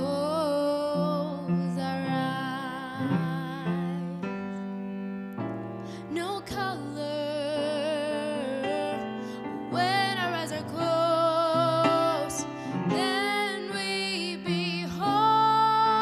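A young girl singing a slow, gentle ballad solo, with vibrato on long held notes and a short break in the singing about four seconds in, over soft piano chords.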